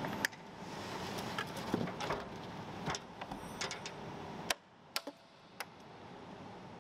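Scattered light clicks and knocks from handling an electric aircraft's battery pack, its latches and connector, over steady background noise that drops away about four and a half seconds in.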